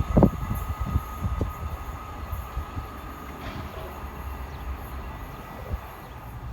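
A train running along the track: sharp knocks of wheels over rail joints in the first second or so, over a low rumble and a steady high whine, the noise easing off after that.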